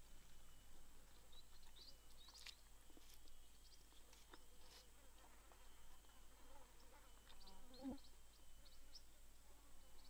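Near silence: faint forest ambience with scattered small chirps and ticks, and one short, slightly louder call about eight seconds in.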